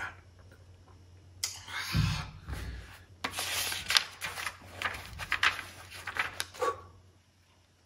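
Rustling and rubbing of cloth and paper as a page is turned under a blanket, with a soft low thump about two seconds in. It stops about a second before the end.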